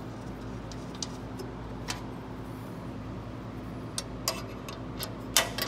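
Scattered light metal clicks and taps from handling the swing down arm's securing bolts on the steel shelf, over a steady low hum. Near the end the clicks come faster and louder.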